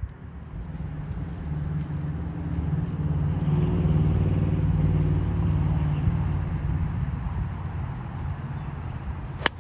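Engine of a passing motor vehicle, a low hum that swells to a peak about four seconds in and then fades away. A single sharp click sounds near the end.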